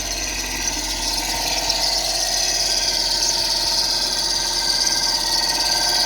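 Acura TL's Honda J-series V6 running with a loud, steady, high-pitched grinding whine from the belt-driven accessories, slowly growing louder. The mechanic thinks the bearings are gone, with the power steering pump under suspicion.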